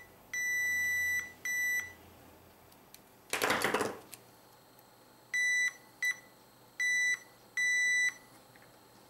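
Fluke 87V multimeter's continuity beeper sounding in a steady high-pitched tone, switching on and off: a beep of about a second and a short one, then four more near the end. Each beep means the probed cassette-drive switch contacts are closed. A short, louder burst of rustling noise comes a little over three seconds in.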